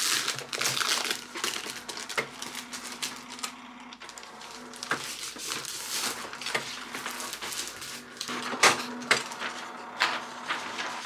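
Canon inkjet printer feeding and printing a large sheet of paper: a motor hum with repeated clicks and clatter from the paper feed and print mechanism, and the sharpest click about nine seconds in. Paper rustles as the sheet is handled.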